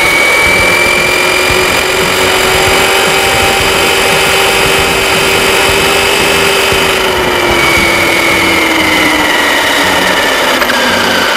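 Helion Invictus RC car's electric motor and geartrain whining as it drives, over rough tyre noise. The whine holds high, then drops in pitch about two-thirds through as the car slows, and falls further near the end.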